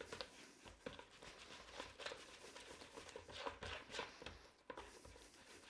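Hands kneading and squeezing soft homemade play dough to work food colouring through it: faint, irregular soft squishes and light taps.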